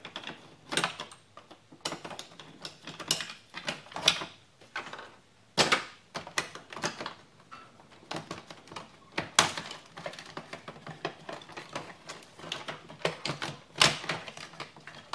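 Irregular clicks, taps and knocks of hand tools and plastic interior trim: a small Torx screw is taken out and a plastic door trim panel of a 1996 Buick LeSabre is worked loose by hand.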